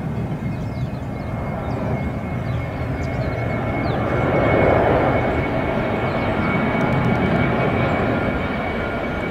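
Twin-engine jet airliner's engines at takeoff thrust during the takeoff roll: a steady jet noise with a constant high fan whine, swelling to its loudest about halfway through.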